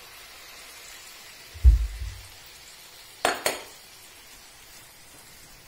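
Marinated chicken legs sizzling faintly in a frying pan after a splash of water, with a dull thump about one and a half seconds in and a sharp dish clink a little after three seconds.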